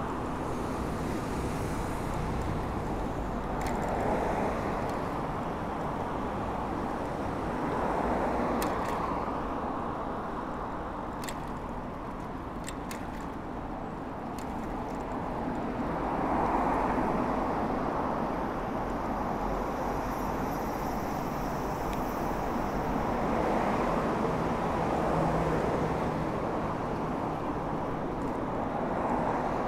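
Road traffic: cars passing one after another, swelling and fading every few seconds over a steady rush of tyre noise, with a few light clicks around the middle.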